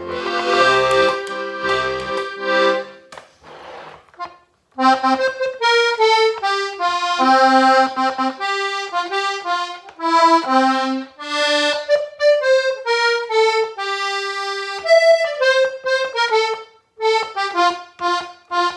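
Hohner Corona IIIR diatonic button accordion tuned GCF, played as a tune. Bass notes sound under the melody for the first few seconds, there is a short pause, and then the melody runs on in quick separate notes without the low bass.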